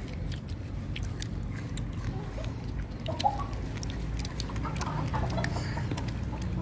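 A toddler chewing a mouthful of crisp fruit: a scatter of small crunchy clicks and wet mouth sounds, over a low steady hum.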